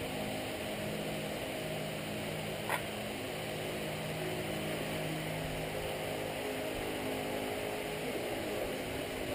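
Gas burner under a cast iron pot of molten lead running steadily, a continuous rushing noise with a faint low hum in it. One light clink a little under three seconds in.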